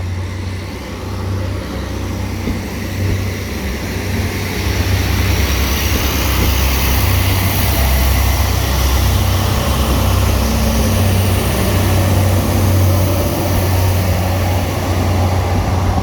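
Northern Ireland Railways Class 3000 diesel multiple unit (unit 3017) running over the level crossing. A steady low diesel engine rumble sits under wheel and rail noise, and the train gets louder about four seconds in.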